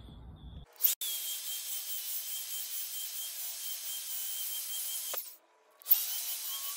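AEG belt sander with a 40-grit belt grinding the steel face of an anvil: a steady high whine over a grinding hiss. It starts about a second in, stops for about half a second near the five-second mark, then runs again.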